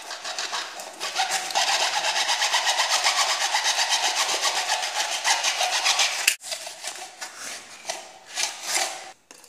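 Thin hand-held saw blade cutting through the neck of a plastic water bottle in fast, even back-and-forth rasping strokes, about five a second. A sharp click comes a little after six seconds in, followed by slower, uneven strokes.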